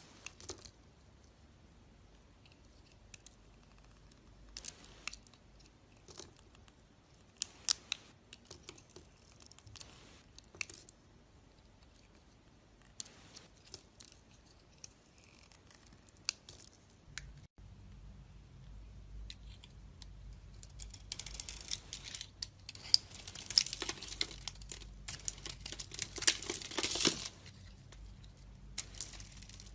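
A blade cutting dried soap into cubes: scattered crisp cracks and clicks, then a denser, louder run of crunchy crumbling about two thirds of the way in.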